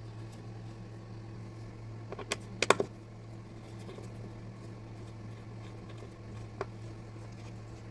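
A few short clicks and taps of a hand tool working the bolts while tightening an office chair's seat mechanism: a quick cluster about two to three seconds in and a single click later, over a steady low hum.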